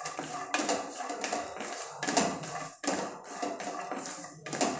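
Peanuts being stir-fried in a little oil in a kadhai, rattling and scraping against the pan in irregular strokes of a wooden spatula.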